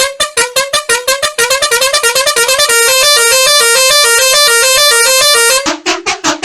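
Bus horn sample played as a fast melody of short pitched honks in an electronic sound-variations remix, the notes stepping up and down in pitch; just before the end the horn drops lower in pitch as a new variation begins.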